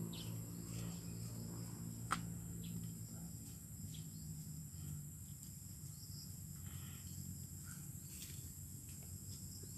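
Steady high-pitched insect chorus, crickets chirring, over a low hum, with one sharp click about two seconds in.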